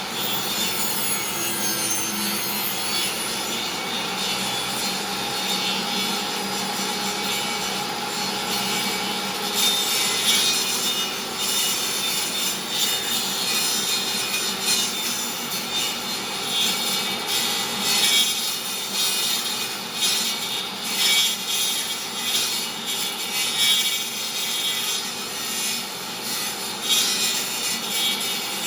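DeWalt table saw blade cutting through a wooden board that is turned slowly against it to cut a disc. The steady cutting noise grows rougher in the second half, rising and falling in uneven surges.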